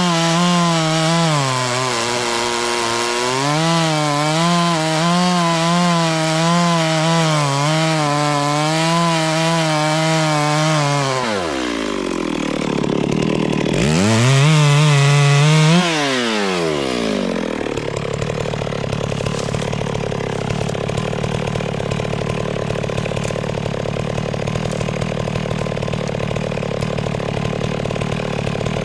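Two-stroke chainsaw running at high revs, its pitch wavering up and down as it cuts into wood. About eleven seconds in the revs drop, rise once more briefly, then fall off to a steady idle for the rest.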